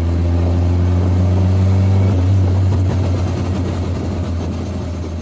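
Loud, deep engine rumble whose pitch rises slightly over the first two seconds, then becomes rougher and slowly fades out.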